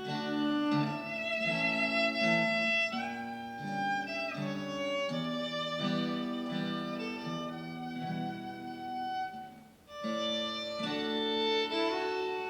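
Fiddle playing a melody over acoustic guitar accompaniment, with a brief pause between phrases just before ten seconds in.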